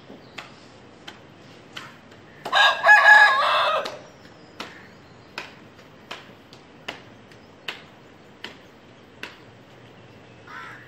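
An Aseel rooster crows once, about a second and a half long, a couple of seconds in. Sharp clicks come at an even pace, about one every three quarters of a second, before and after the crow.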